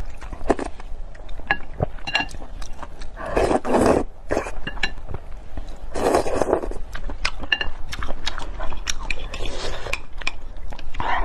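Close-miked eating sounds: wet chewing and lip smacks, with two long slurps of starch noodles about three and six seconds in.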